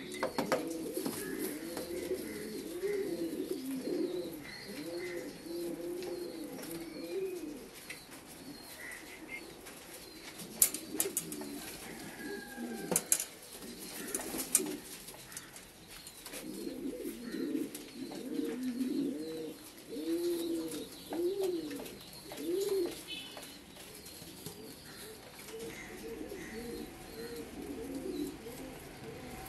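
Indian fantail pigeons cooing, a run of repeated rising-and-falling coos in two long spells. A few sharp clicks fall in the quieter stretch between the spells.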